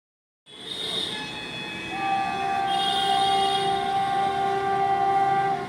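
Train horn sounding one long, continuous blast over the running noise of an approaching train, cutting in about half a second in. A stronger, lower tone joins about two seconds in.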